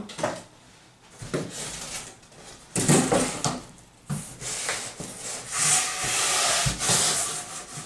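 Cardboard box being cut and handled: a box-cutter blade scraping through the cardboard along the fold, with flaps rustling and knocking. The scraping is irregular, with its longest stretch about two-thirds of the way through.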